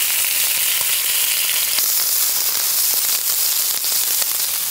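Bacon strips frying on the hot plate of a fire-barrel grill: a steady sizzle with scattered small pops.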